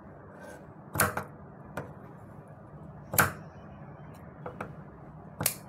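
Scissors snipping through a folded fabric strip, cutting it into short pieces: three sharp snips about a second, three seconds and five and a half seconds in, with a fainter one in between.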